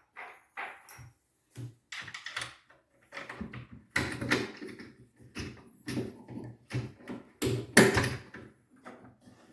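Irregular knocks, clicks and clatter of wood and metal being handled as the travel double bass's neck section is locked down with a bolt inside the body. The loudest knock comes near the end.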